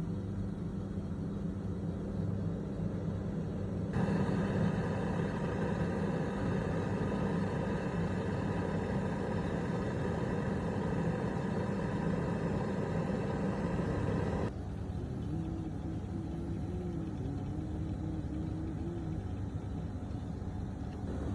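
Air conditioner running with a steady mechanical hum. A louder noise joins suddenly about four seconds in and cuts off abruptly about ten seconds later.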